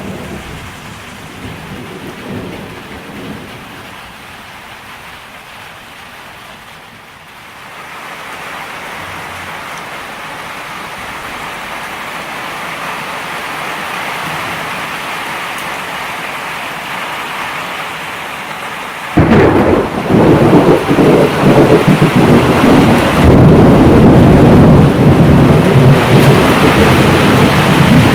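Tropical thunderstorm heard from a veranda: rain hissing and building. About two-thirds through, a sudden loud thunderclap breaks into heavy rumbling over heavy rain.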